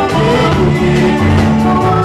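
Live band music: a woman singing over electric guitars, bass guitar and drums.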